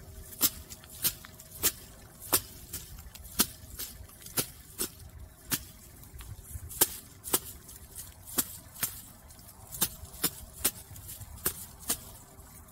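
Dried perilla stalks being beaten to thresh out the seed: a run of sharp, dry knocks, about one and a half a second, somewhat irregular.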